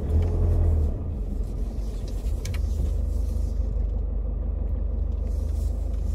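Steady low rumble of a car heard from inside the cabin, swelling briefly in the first second.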